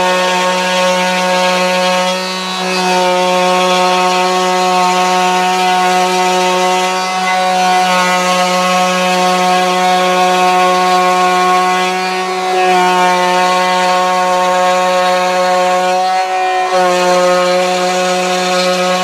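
Electric router running in a router table, cutting a circle through a melamine board with an old, dull bit as the board is turned about a centre pin. A steady high whine that sags briefly a few times as the bit takes load.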